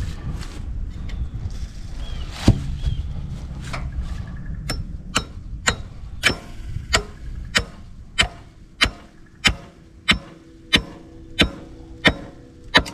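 Hammer driving a nail through a maple-limb brace into a wooden fence post: one heavy blow about two and a half seconds in, then a steady run of about fourteen blows, one every half second or so, each with a short ring from the nail.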